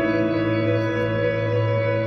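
Background music: slow ambient music with sustained organ-like chords.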